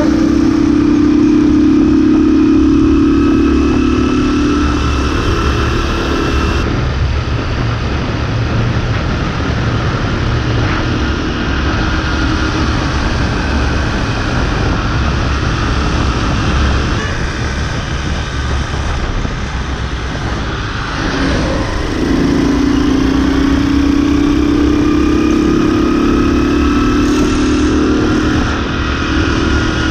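Motorbike engine running while riding, a steady hum that climbs slowly in pitch in the first few seconds and again after about twenty seconds, over low wind rumble on the microphone.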